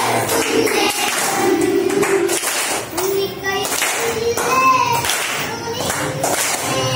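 A group of children singing a Malayalam poem together and clapping their hands in time.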